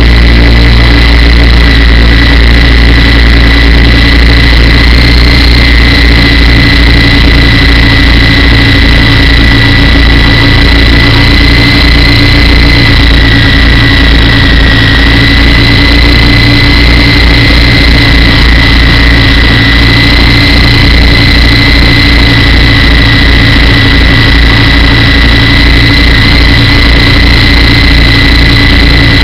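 Radio-controlled model helicopter in flight, heard from a camera mounted on the helicopter itself: a loud, steady high whine from the motor and gears over a low, fluttering rotor beat. The pitch wavers slightly midway.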